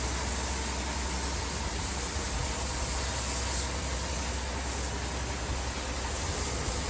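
A steady low engine rumble under an even hiss, unchanging throughout, with a faint steady tone above it.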